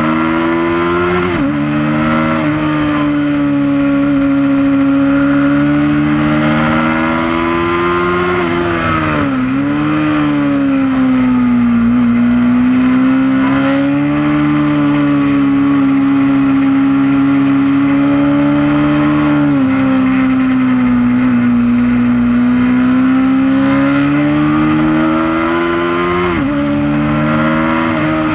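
Honda CB500 motorcycle engine running hard at high revs on track. The note holds high for long stretches, drops sharply and climbs back several times as the rider shifts gear and slows for corners.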